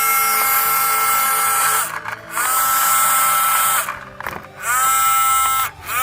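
Small electric DC motor of an RC toy car, whining in repeated bursts of a second or so. Each burst starts with a quick rise in pitch as the motor spins up, and the whine cuts off between bursts.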